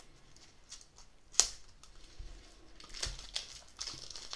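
Scissors cutting the plastic shrink-wrap of a boxed card deck, with one sharp snip about a second and a half in, then the plastic film crinkling as it is peeled off the box.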